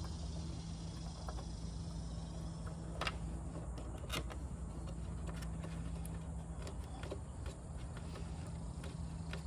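A few sharp clicks and light rustling as insulated wires are pushed and worked into a plastic electrical enclosure, over a steady low hum.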